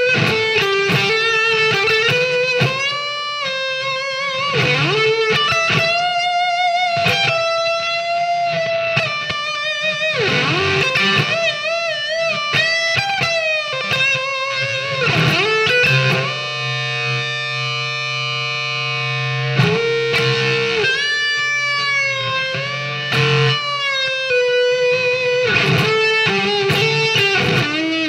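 Epiphone Les Paul electric guitar played through a Marshall MG30FX combo amp on its overdrive channel: single-note lead lines with string bends and wide vibrato, and a chord left ringing for about three seconds past the middle.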